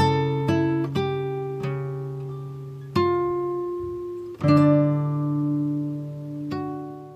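Background music: slow, single plucked string notes and chords, each ringing out and slowly fading before the next.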